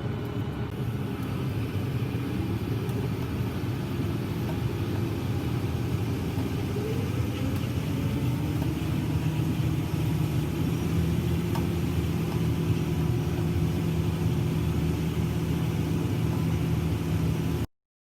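New Holland T8 tractor's diesel engine running under way, heard from the cab; its pitch climbs a couple of times as it speeds up, then holds steady before cutting off abruptly near the end.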